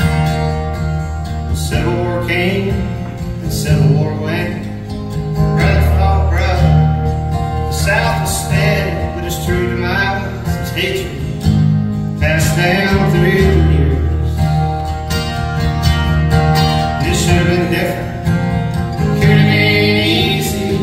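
Two acoustic guitars playing an instrumental passage of a folk song, chords with a melody line moving over them.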